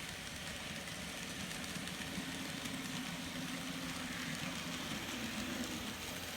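N scale model locomotive (Intermountain SD40-2) running along the track: a steady hum from its small motor and wheels on the rails.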